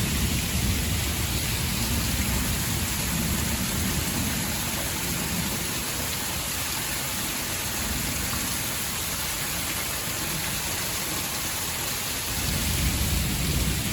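Heavy thunderstorm rain pouring steadily, with a low rumble underneath that eases off and swells again near the end.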